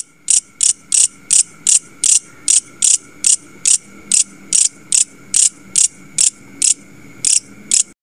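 Grasshopper stridulating: a steady series of short, high chirps, about three a second.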